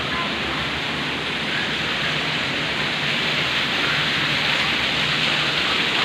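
Steady rush of water from an artificial waterfall pouring into a pond, growing a little louder about halfway through.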